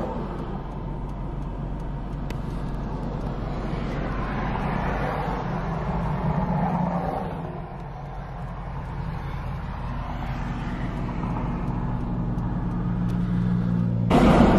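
Car engine and road noise heard from inside the car: a steady low hum under a broad rush, which gets louder shortly before the end.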